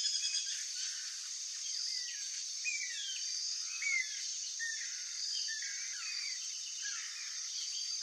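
Tropical woodland ambience: many short bird chirps and quick whistled glides from several birds, scattered through the whole stretch, over a steady high-pitched hiss.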